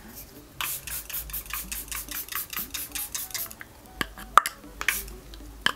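Setting spray bottle pumped in a fast run of short spritzes with the pump clicking, then a few sharper clicks near the end.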